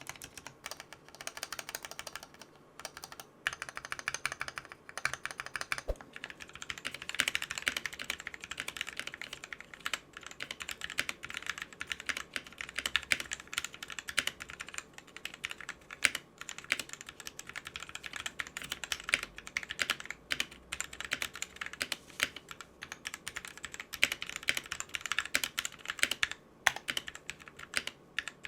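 Fast, continuous typing on a mechanical keyboard with pre-lubed Gateron Cap Yellow linear switches and pudding keycaps, with a brief lull about three seconds in.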